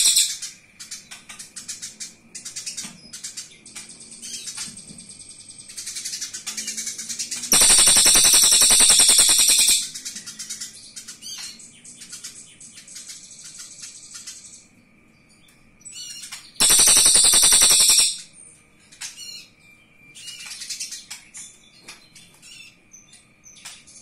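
Eurasian tree sparrow giving its harsh, rapid fighting chatter in two loud bursts, about two seconds each, roughly a third and three quarters of the way in. Softer scattered chirps come in between.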